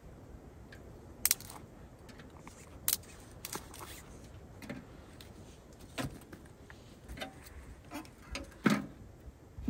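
Scattered light clicks, taps and knocks of small objects being handled, over a low steady rumble; the loudest knock comes near the end.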